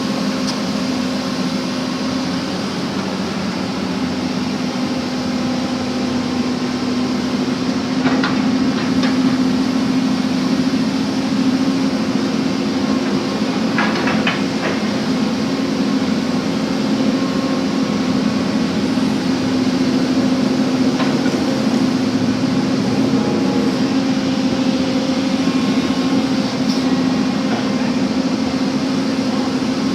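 Backhoe's diesel engine running steadily at a constant speed, with a couple of brief metallic knocks.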